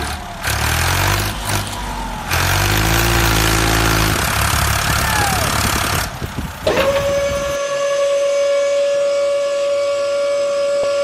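Model dump truck running: a low engine drone with revving for the first few seconds, then from about seven seconds in a steady high whine as its tipper bed begins to lift.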